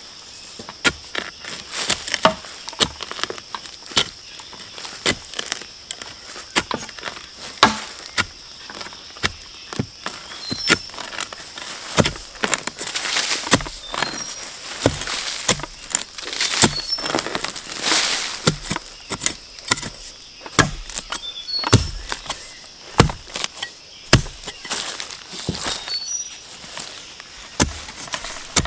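Irregular knocks, cracks and rustles of bamboo shoots being chopped and dug out of the ground with a hand tool.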